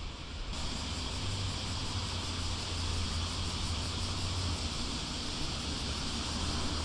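Wind buffeting an action camera's microphone outdoors, an uneven low rumble over a steady hiss, coming in suddenly about half a second in.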